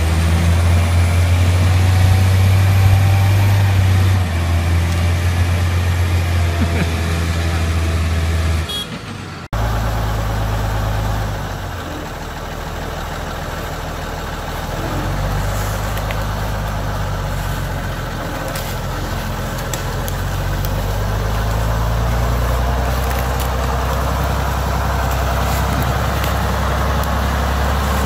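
Mercedes-Benz Unimog diesel engine running steadily under load. After an abrupt cut about nine seconds in, a second Unimog's diesel engine runs with revs rising and falling as it moves.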